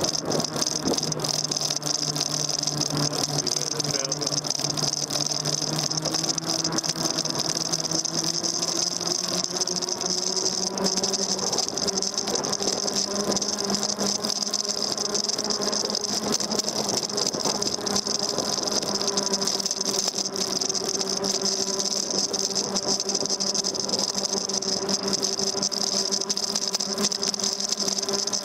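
Daymak Max e-bike's electric motor whining steadily while riding, with the bike's parts rattling over the road. The whine climbs slightly in pitch in the first ten seconds or so as the bike picks up speed.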